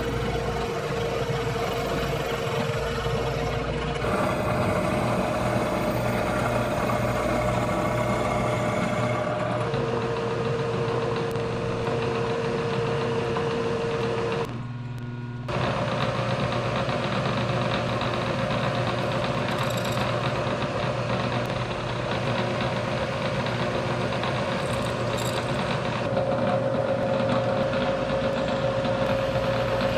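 Milling machine running while its cutter faces the sides of the mounting lugs on a two-stroke engine crankcase casting: a steady machine hum with a held tone that shifts pitch a few times, as the cut engages and changes. It breaks off briefly about halfway and resumes.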